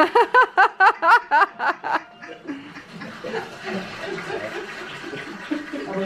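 A person laughing heartily in quick, evenly spaced 'ha-ha' pulses for about two seconds, then softer, mixed laughter and murmuring voices.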